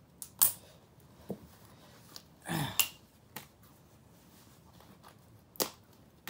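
A handful of sharp, separate clicks and snaps of hard plastic being handled and taken apart, the loudest about half a second in. A short breathy sound comes about two and a half seconds in.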